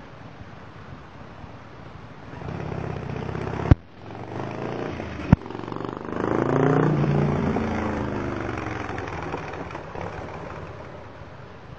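Motorcycle with Tailgunner Super Slash Cut exhaust pipes passing by: the exhaust note builds, peaks, then drops in pitch and fades as it moves away. Two sharp pops come during the approach.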